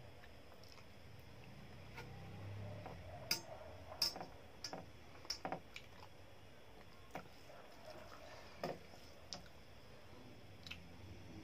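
Eating sounds: scattered sharp clicks and soft wet mouth noises as rice is mixed by hand on a metal plate and chewed, the clicks bunched between about three and six seconds in, with one more near the end.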